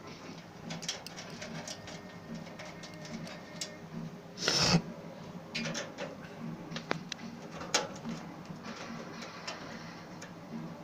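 Scattered light clicks and knocks of a PC case being handled and opened, with one louder noisy scrape-like burst about four and a half seconds in.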